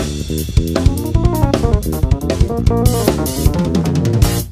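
Jazz-funk trio playing: drum kit, electric bass guitar and Korg Kronos keyboard, with busy drumming and fast runs of notes. Near the end the band stops together for a short break.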